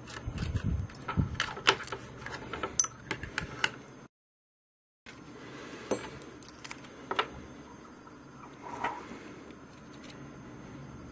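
Clicks, taps and knocks of a small clear plastic enclosure being handled and its two halves pulled apart, busiest in the first few seconds. About four seconds in, the sound cuts to total silence for about a second, then sparser clicks follow.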